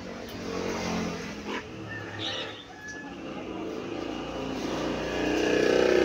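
Corded electric pet hair clipper switched on about four seconds in and running with a steady buzz, getting louder near the end as it is worked on the dog's coat.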